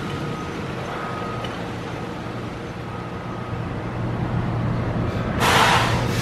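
Tractor-trailer pulling away, its diesel engine running low and steady and growing louder after a few seconds. About five and a half seconds in comes a short, sharp hiss of air from the truck's air brakes.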